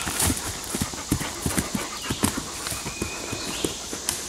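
Hoofbeats of a warmblood-cross horse cantering on grass, a run of uneven knocks.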